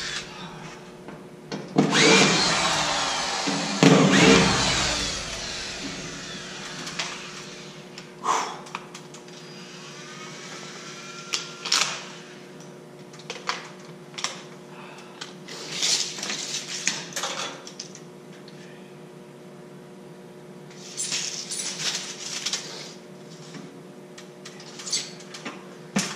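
Two short whirring bursts from a handheld power tool during drywall hanging, about two and four seconds in. Scattered clicks, knocks and rustles of tools and fasteners being handled follow.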